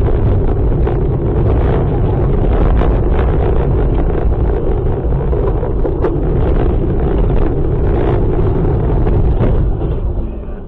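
Car driving on a wet road, heard through a dashcam: loud steady rumble of road and wind noise with many scattered sharp ticks, easing a little near the end.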